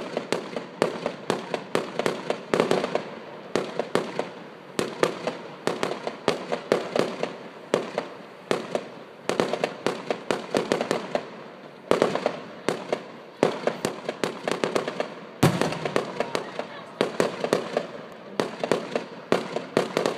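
Aerial fireworks going off in quick succession: a continuous string of sharp bangs and crackles, with a deeper, louder bang about fifteen seconds in.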